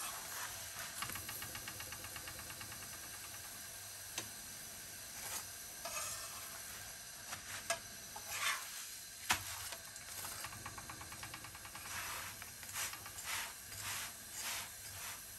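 Ghee sizzling under a paratha on a hot tawa as it is roasted, a steady faint hiss. Scattered scrapes and clicks of a metal spatula pressing and turning the paratha on the griddle.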